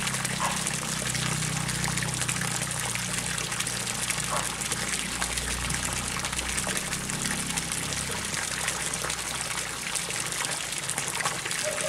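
A stream of water pouring from a pipe into a pond, splashing steadily onto the surface, with a low hum underneath.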